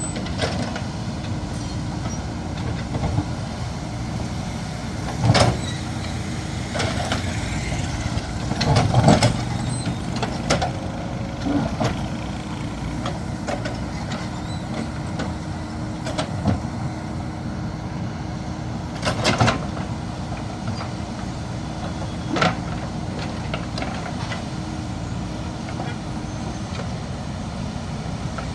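JCB backhoe loader's diesel engine running steadily, with about half a dozen sharp clanks and knocks scattered through.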